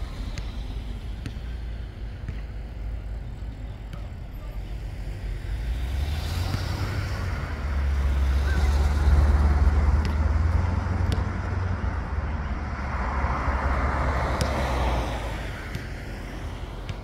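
A motor vehicle driving past on the street. Its low engine rumble builds from about six seconds in, is loudest a few seconds later, and fades away with a hiss of tyres near the end.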